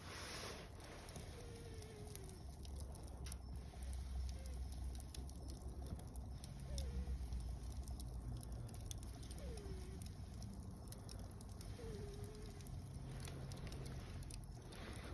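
Wood fire of mixed conifer and broadleaf logs burning in a fire pit: scattered crackles and pops over a low steady rumble, with a few faint short falling whistles now and then.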